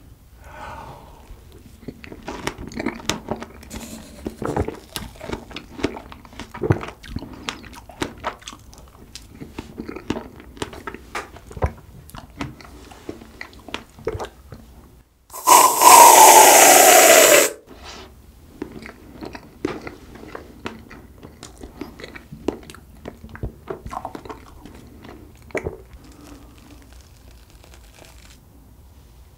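Close-up wet chewing and biting of strawberries and whipped cream, with small clicks and smacks. About halfway through, an aerosol whipped-cream can sprays for about two seconds: a loud hiss with a falling tone, much the loudest sound here. Then the chewing resumes.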